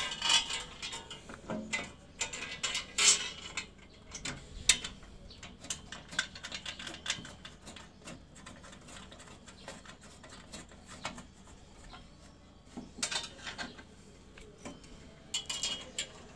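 Irregular metal clinks, taps and scrapes of a hand tool and bolts against the steel frame of a swing bench during assembly, with several louder clattering bursts near the start, about three seconds in, and again near the end.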